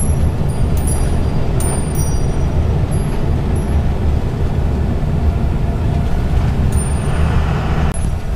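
Converted school bus driving, heard from inside: a steady low engine and road rumble, with sharp high rattles and squeaks from the cabin scattered through it.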